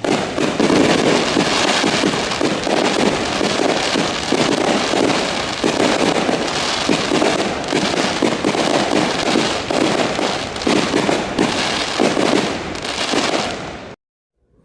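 Fireworks show going off: a dense, continuous run of bangs and crackling that fades slightly and then cuts off about a second before the end.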